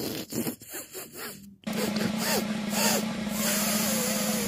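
A few quick rubbing, brushing strokes, then a steady low hum starts suddenly about a second and a half in, with a wavering higher tone over it, like Noo-Noo's vacuum-cleaner sound.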